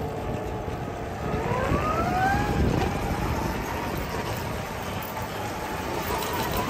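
Electric drive motor of a 1200-watt MotoTec Raider youth UTV whining as it drives. The pitch rises as the vehicle speeds up, a little over a second in, and then holds steady, over a steady rushing noise.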